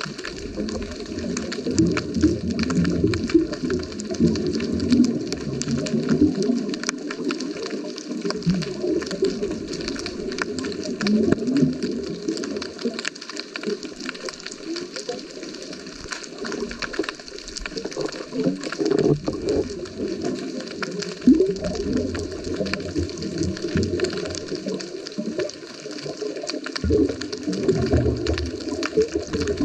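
Underwater sound heard through a GoPro housing on a scuba dive: continuous bubbling and gurgling, with surges of low rumbling bubbles every several seconds, typical of a diver's exhaled breath, over scattered faint clicks.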